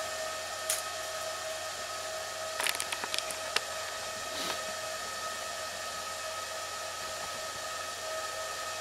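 Steady fan-like machine hum and hiss carrying a faint steady whine, with a few light clicks and taps about a second in and again around three to four seconds in.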